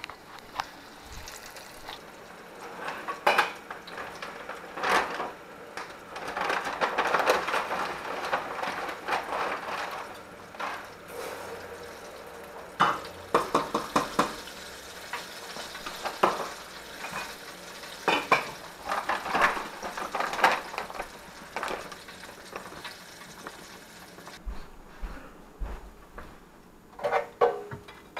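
Oil sizzling in a countertop deep fryer as breaded fish fries, mixed with the clatter and clinks of dishes, utensils and the wire fryer basket. A cluster of knocks near the end as the basket is lifted out of the oil.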